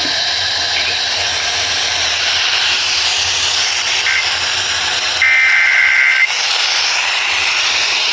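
Steady radio static hiss on an Emergency Alert System broadcast, broken about five seconds in by a one-second burst of EAS digital data tones, with a shorter faint blip of the same tones a second earlier.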